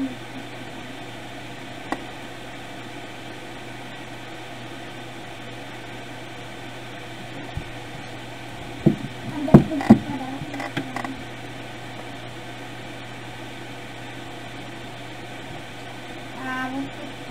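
Steady background hiss with a low hum. A single click comes about two seconds in, then a cluster of sharp knocks against the wooden desk around nine to ten seconds in as the notebook and hand are moved. A brief voice-like sound comes near the end.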